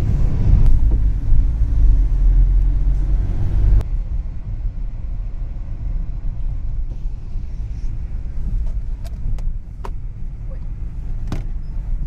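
Car driving, a steady low rumble of road and engine noise that drops sharply about four seconds in, with a few faint clicks near the end.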